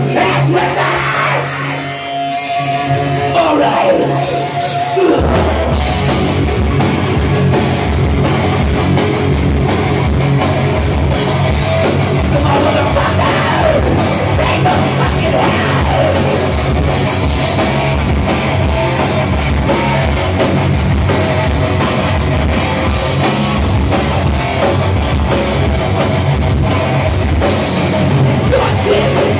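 Heavy metal band playing live at full volume: distorted electric guitars, bass and drum kit. About five seconds in, the drums and bass come in heavily after a sparser guitar passage.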